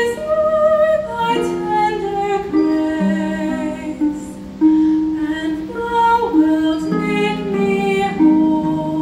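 A concert pedal harp playing plucked chords and arpeggios, with a woman singing held notes over it into a microphone.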